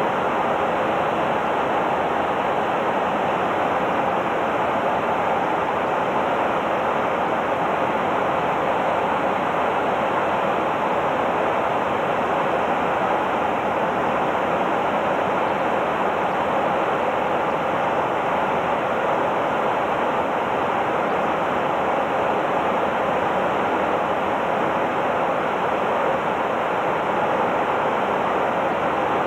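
Steady cabin noise of a KC-135 jet tanker in cruise flight: engine and airflow noise as an even, unchanging hiss.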